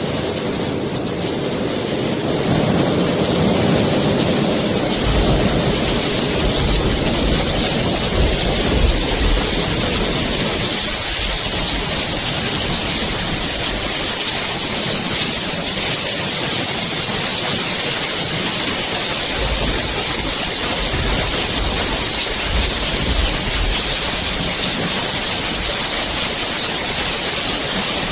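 Steady heavy rain, a dense even hiss. Low rumbling swells come in a few seconds in and again past the middle.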